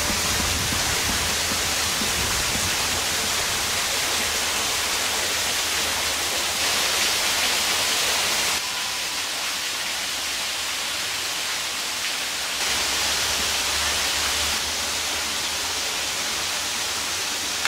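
A steady rushing noise with no tones in it, stepping abruptly in level a few times after the halfway mark.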